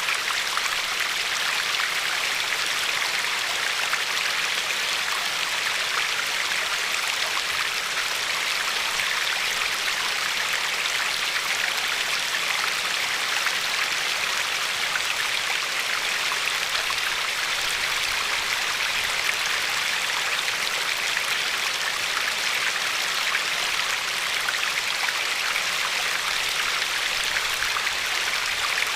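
Glacier-fed river flowing and lapping along a pebbly shore: a steady rush of water that does not change.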